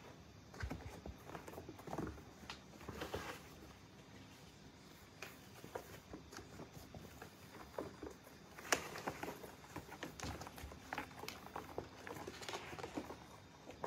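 Kittens scampering and wrestling on carpet around a cardboard scratcher: an irregular patter of paws with soft bumps and knocks against the cardboard, the sharpest knock about two-thirds of the way through.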